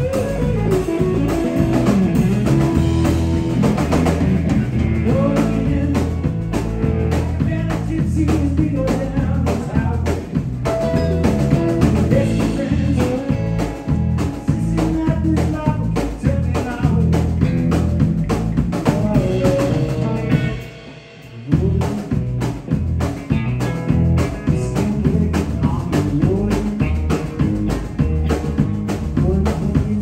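Live blues-rock trio playing: Stratocaster-style electric guitar, electric bass and drum kit. The band stops briefly about two-thirds of the way through, then comes back in together.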